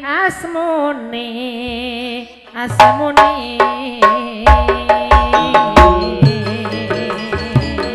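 Madurese gamelan gending: a singer holds a long wavering note, then about three seconds in the ensemble comes in with sharp drum strokes and ringing metallophone tones under the voice.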